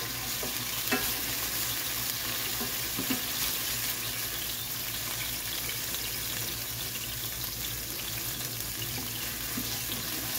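Pre-minced garlic sizzling steadily in hot olive oil in a nonstick skillet, stirred with a spoon that scrapes and taps lightly against the pan a few times.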